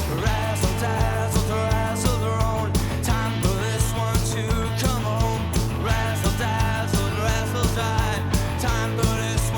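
Rock music with a steady drum beat, bass and a wavering lead melody line.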